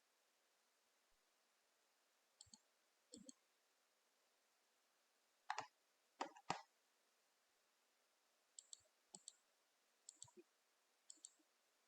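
Computer mouse clicking, a dozen or so short sharp clicks, many of them in quick pairs like double-clicks, with the louder ones about six seconds in.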